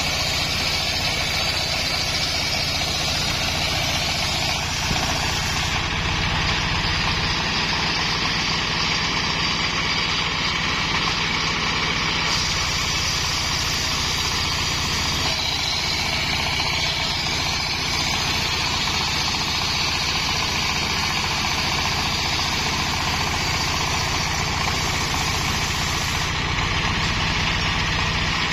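Stationary engine running steadily, driving a homemade circular sawmill, with the saw blade cutting through coconut-palm timber as the log is fed along the table.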